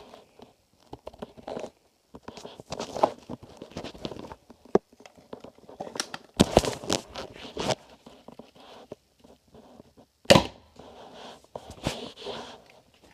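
Irregular knocks, clicks and rustling of packaging being handled and torn open, with a sharp knock about ten seconds in.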